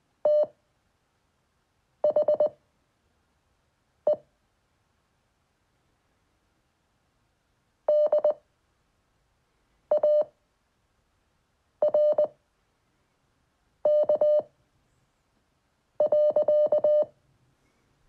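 Morse code practice tones from the LCWO website played on a computer at 5 words per minute: one steady mid-pitched beep keyed into dots and dashes, one letter about every two seconds. There is a longer pause between words about halfway through, and the longest letter comes near the end.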